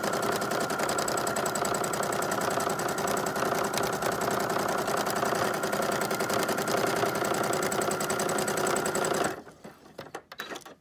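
Sewing machine running fast and steady, stitching a line drawing as the fabric is guided by hand. It stops abruptly about nine seconds in, leaving a few light clicks.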